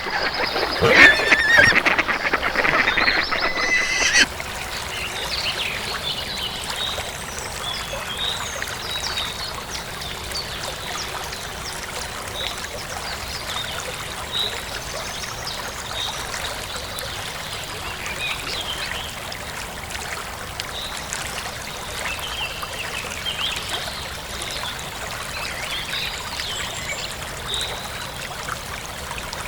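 Waterfowl honking loudly for about four seconds; then, after an abrupt cut, small birds giving short, high chirps over the steady rush of running water.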